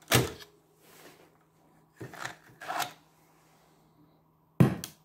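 Mechanical clicks and clunks from a Blaupunkt Wien Stereo CR car cassette radio as its cassette mechanism and knobs are handled: a sharp clunk at the start, two lighter clicks around two to three seconds in, and the loudest clunk near the end, over a faint steady hum.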